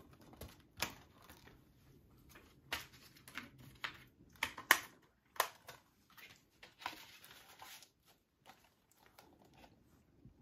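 Plastic Blu-ray case and its cardboard slipcover being handled: a series of sharp clicks and knocks, with a stretch of scraping rustle about seven seconds in.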